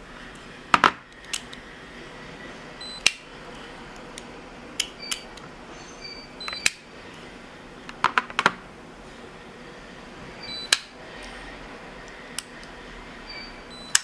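Scattered sharp clicks and taps of a small metal fingerprint padlock being handled, its shackle snapping and its body set down, with a cluster of quick clicks about eight seconds in and the loudest about a second in.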